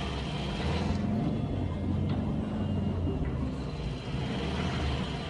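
Steady low rumble of a motor vehicle running, with a continuous low engine hum.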